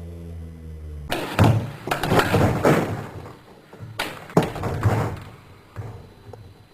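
A steady low hum cuts off about a second in, followed by a series of irregular knocks and thumps, with one sharp bang about four seconds in.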